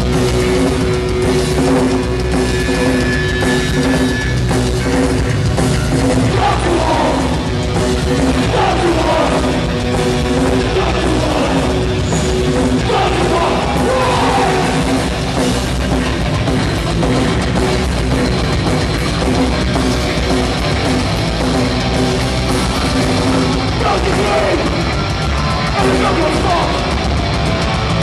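Punk rock band playing live at full volume, with distorted electric guitars, bass and drums, heard from within the crowd.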